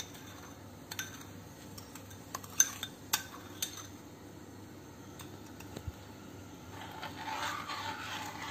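Several light clinks of a metal spoon scraping a steel bowl and knocking the pan rim as syrup is tipped out, then softer scraping as the spoon stirs the syrup in the pan near the end.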